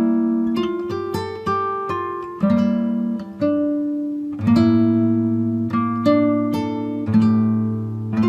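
Background music: an acoustic guitar plucking slow chords, each note ringing out and fading before the next.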